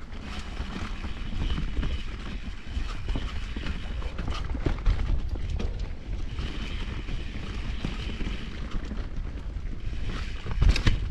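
Mountain bike riding down a rough trail: wind buffeting the microphone over the rumble and rattle of the tyres and bike on the ground, with a heavier thump about ten seconds in.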